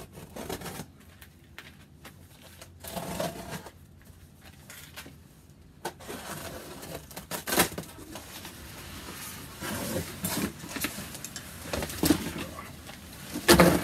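Cardboard box being opened by hand: tape and cardboard scraping, rustling and tearing, getting busier about halfway through. Near the end come heavier knocks as the foam-wrapped wood stove is pulled out of the box.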